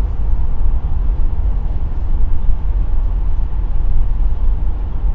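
Steady low drone of a motorhome's engine and road noise heard from inside the cab while cruising on the highway. The engine is turning about 2,000 rpm, higher than its usual 1,600, which the driver puts down to a slight climb.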